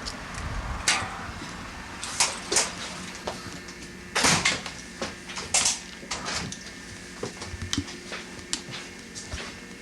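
Kitchen clatter: scattered short knocks and clinks of dishes and utensils, with a sharper clatter about four seconds in and again near the middle.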